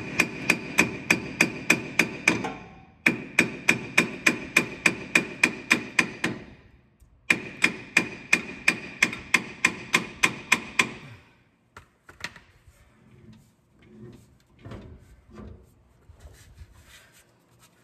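Hammer tapping new universal-joint caps into place on a drive shaft, metal on metal, about three to four ringing taps a second. The tapping comes in three quick runs with short pauses between them, then stops about eleven seconds in, leaving faint scattered knocks and rubbing.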